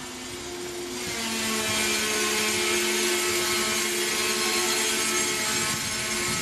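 Freight wagons rolling past on steel wheels, with a steady high metallic squeal of several tones from the wheels setting in about a second in over the rumble of the wheels on the rails.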